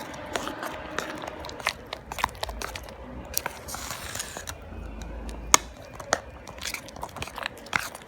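Slime being stirred in a cup with a utensil, with irregular clicks of the utensil against the cup and sticky crackling as the slime thickens with added activator.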